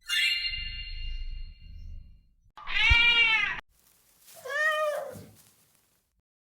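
A sudden ringing chime that fades away, then a cat meowing twice, the second meow lower and falling in pitch.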